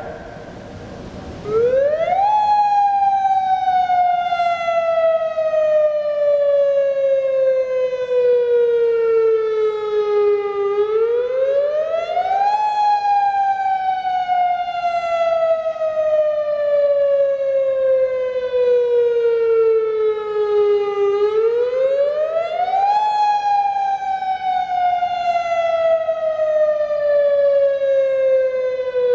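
Federal Signal DSA electronic directional speaker-array warning siren sounding its monthly test tone. It starts about a second and a half in, and its pitch sweeps up quickly, then falls slowly over about eight seconds, repeating about every ten seconds.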